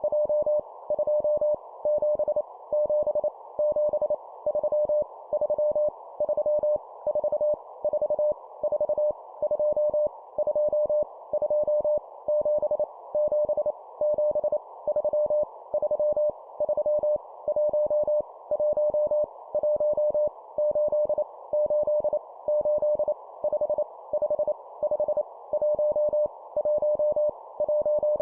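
Morse code (CW) practice at 25 words per minute: a single mid-pitched steady tone keyed rapidly on and off in dots and dashes, sending random numbers, each repeated three times, over a faint steady band of hiss.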